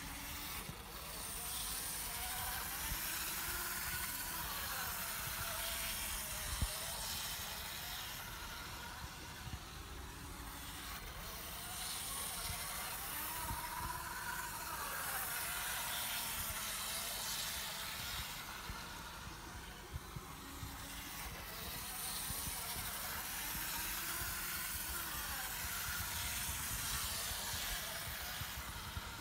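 Märklin mini-club (Z scale) BR 89 model steam locomotive running laps of a small oval track: its tiny motor whirs and its wheels rattle on the rails. The sound swells and fades about every ten seconds as the loco comes round the oval.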